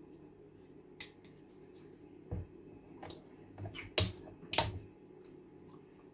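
About six short, sharp clicks and knocks, the loudest about four and a half seconds in, as a glass bottle of olive oil is handled on a kitchen counter, against a low steady hum.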